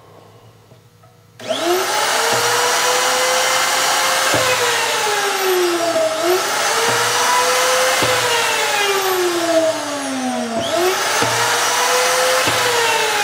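Hoffmann MU2 dovetail key machine's cutter motor starting automatically as the handle is pulled, whining up to speed, then winding down with a slowly falling pitch. This happens three times, starting about a second and a half in and then roughly every four and a half seconds.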